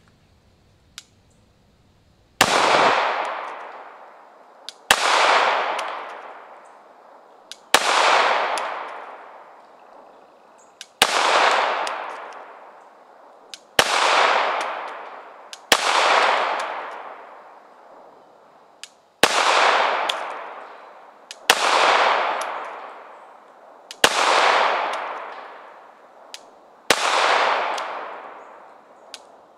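Glock 21 Gen4 .45 ACP pistol fired ten times, one slow aimed shot every two to three seconds, each crack trailing off in a long echo.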